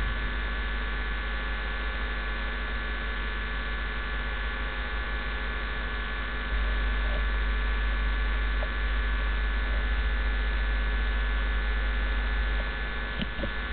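Steady electrical mains hum with a low hiss from the recording setup, a little louder for several seconds in the middle, with a few faint clicks.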